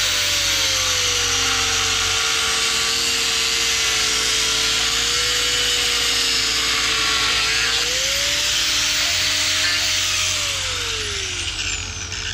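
Corded angle grinder cutting through a small metal piece: a steady whine that sags in pitch under load, with a hiss from the cut. About eight seconds in the whine rises as the disc comes free. From about ten seconds in the grinder is switched off and spins down with a falling whine.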